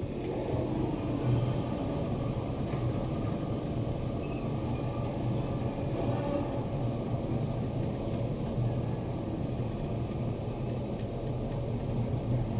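Otis Lexan traction elevator car in motion, a steady low rumble and hum of the ride heard from inside the cab, with no chime sounding.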